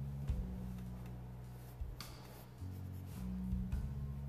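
Pencil scratching across sketchbook paper in a few quick sketching strokes, over quiet background music with low sustained notes.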